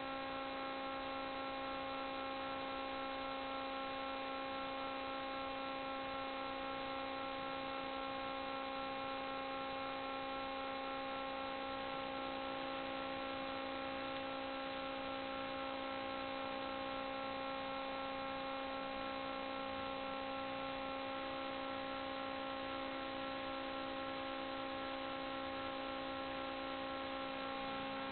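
Steady electrical hum: a buzz made of evenly spaced tones over a low hiss, constant in pitch and level throughout.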